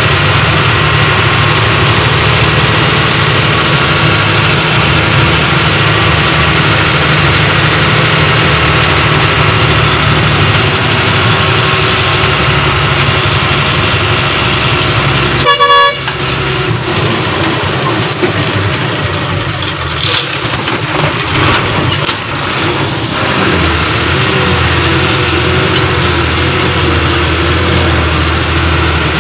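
A vehicle driving on a road, heard from inside: steady engine and road noise. A horn honks once, briefly, about halfway through.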